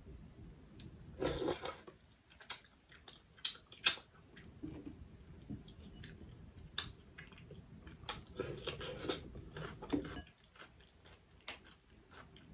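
Close-miked mukbang eating of boiled crawfish: fingers working crawfish in garlic butter sauce, shells being picked at and chewing, heard as scattered sharp clicks and short crackly bursts with brief pauses between.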